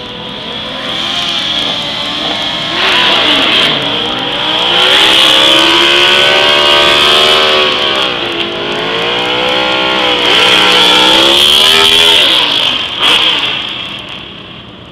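Motorcycle engine revved hard through a rear-tire burnout, its pitch sagging and climbing as the throttle is worked, over the steady screech of the spinning tire. The sound falls away near the end.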